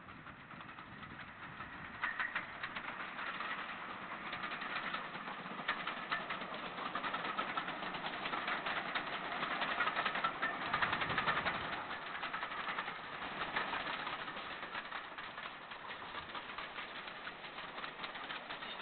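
GWR 2800 Class 2-8-0 steam locomotive working a train: rapid exhaust beats grow louder, are loudest about ten to twelve seconds in, then fade as it draws away.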